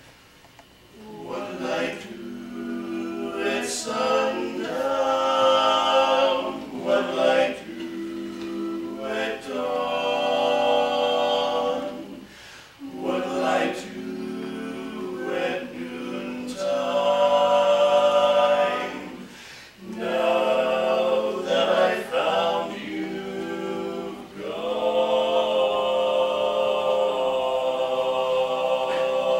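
Male barbershop quartet singing a cappella in four-part close harmony, coming in about a second in and singing in long phrases with two short breaks for breath.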